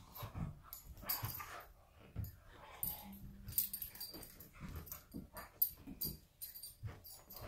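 Two dogs wrestling, with irregular growls, breathy huffs and scuffling of paws and bodies on a dog bed. A short whine comes about three seconds in.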